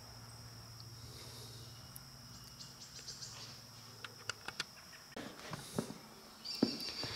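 Quiet shop room tone: a steady high-pitched whine over a low hum, with a few light clicks about four seconds in and soft handling noises near the end.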